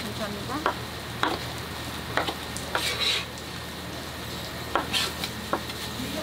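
A kitchen knife chopping boiled pork intestines on a plastic cutting board: irregular sharp knocks, about nine of them, over a steady background hiss and hum.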